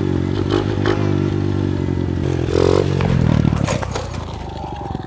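Small single-cylinder dirt bike engine running, then a scrape and clatter about three and a half seconds in as the bike goes down on the asphalt. The engine keeps idling, more quietly, after it falls.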